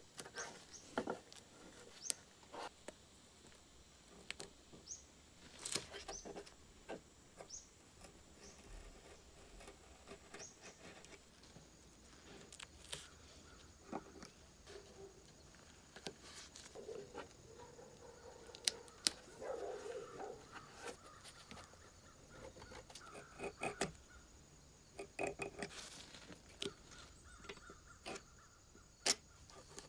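Masking tape being handled and pressed onto a scissor blade, then cut with a hobby knife: scattered soft clicks, crinkles and taps, with a stretch of light scraping about two-thirds of the way through.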